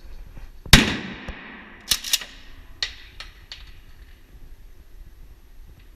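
One loud gunshot about three-quarters of a second in, with a long echoing tail. About a second later come two sharp cracks close together, then a few fainter clicks.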